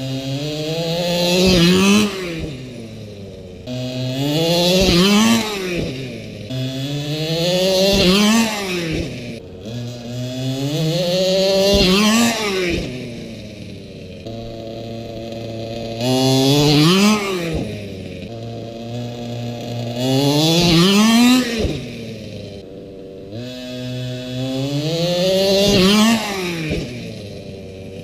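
Redcat Rampage MT radio-controlled monster truck's small two-stroke gas engine revving hard about seven times, each time climbing in pitch for a second or two, peaking and dropping back.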